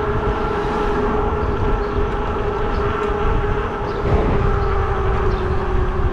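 Fat-tire e-bike riding along with a steady whine whose pitch sinks slowly as it eases off. Wind rumbles low on the microphone.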